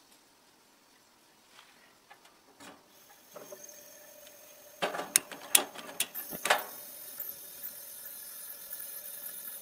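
Coleman liquid-fuel camp stove being lit. Faint pump strokes on the fuel tank, then a hiss as the fuel valve opens, several sharp clicks from a long utility lighter about five to six and a half seconds in, and the burner catches and keeps up a steady hiss.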